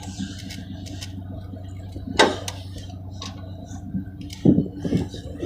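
Scattered light metallic clinks and knocks from boat-trailer and hitch hardware, with one sharper clank about two seconds in, over a steady low hum.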